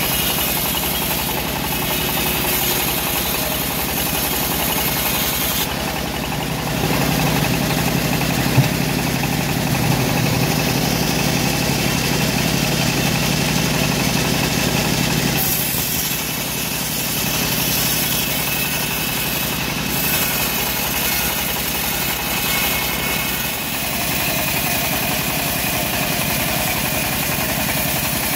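Homemade bandsaw mill running steadily as its blade rips through a teak log, a continuous machine drone mixed with the hiss of cutting. It gets louder and heavier from about 7 seconds in and drops back about halfway through, with one sharp tick along the way.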